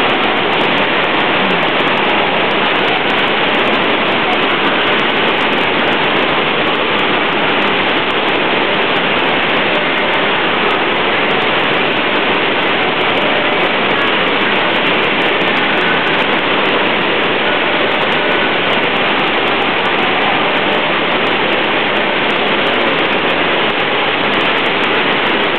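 Loud, steady rush of pumped water pouring over an artificial sheet-wave surf ride.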